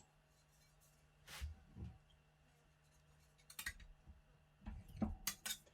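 A few brief scraping and clicking sounds of hand work on the console part, spaced irregularly, with a cluster of them near the end.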